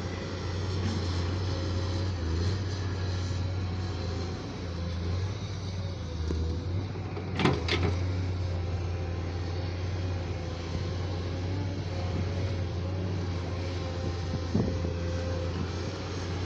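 Diesel engine of a JCB digger running steadily, with two sharp knocks close together about halfway through and another, smaller knock near the end.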